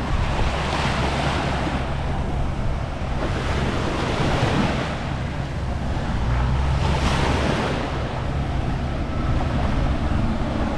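Small waves washing up and breaking on a sandy shore, the surf swelling and ebbing every few seconds, with wind buffeting the microphone.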